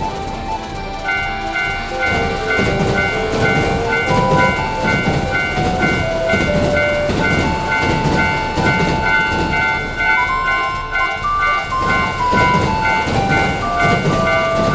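Japanese railroad crossing alarm clanging in a steady repeating rhythm from about a second in, while a train runs past with a low rumble. A light background melody plays over it.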